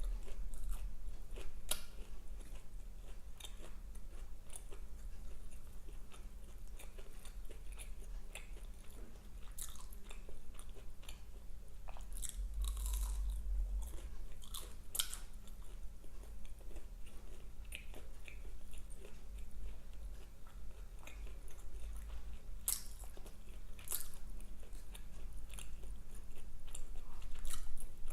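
A person chewing and biting fast food close to the microphone, with irregular crunches and wet mouth clicks.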